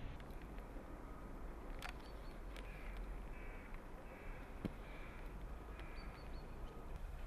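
Birds calling in a string of short, harsh, repeated calls over a steady low outdoor rumble, with a few sharp clicks.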